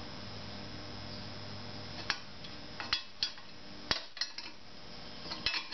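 Sharp metallic clinks and knocks, about half a dozen spread over the last few seconds, from a motorcycle rear brake disc clamped in a bench vise being worked by hand to break it free of its heated carrier ring. A low steady hum underneath stops about two seconds in.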